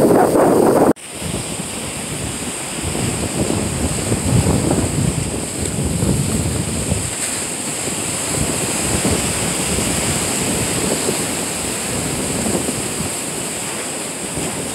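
Ocean surf breaking and foaming over the rocks of a jetty, with wind buffeting the microphone. The sound cuts off sharply about a second in and picks up again as a steady wash of surf that swells every few seconds.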